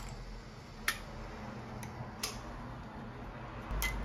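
A few sharp clicks and ticks over a steady low hum at a Landis sole-stitching machine, as the stitching thread is handled after the boot comes out. The loudest clicks come about a second in and just before the end.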